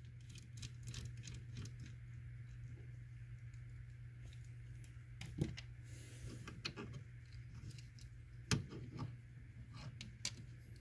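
Small screwdriver backing out the screws of a 40mm fan from a plastic 3D-printer hotend shroud, then the fan being pulled free: faint scattered clicks and ticks of metal and plastic, the loudest about eight and a half seconds in, over a steady low hum.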